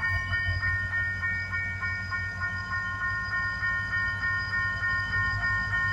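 A repeating electronic warning signal, about three strokes a second over steady held tones, with the low pulsing rumble of the approaching GT22CW-2 diesel locomotive beneath it.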